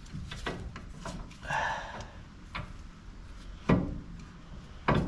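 Hand tools and metal car parts being handled and set down: scattered light clicks and a short scrape, then two sharp knocks about a second apart near the end.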